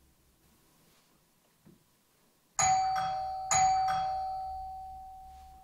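Doorbell chime rings twice, about a second apart, each ring fading out slowly.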